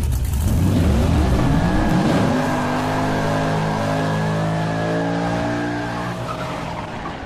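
Car engine revving up, its pitch rising steeply, then holding steady at high revs before fading near the end, like a race car.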